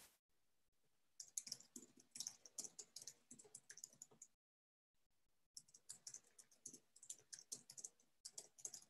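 Faint typing on a computer keyboard: rapid key clicks in two runs, with a pause of about a second just before the middle.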